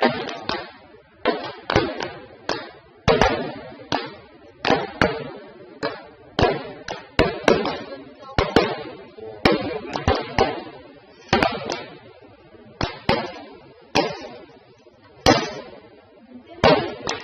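Fireworks shells bursting in a steady, irregular barrage, one or two bangs a second, each trailing off in an echo.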